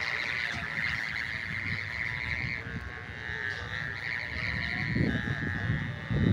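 Noisemaker of a flying kite, a hummer, buzzing steadily in the wind with a high, wavering drone.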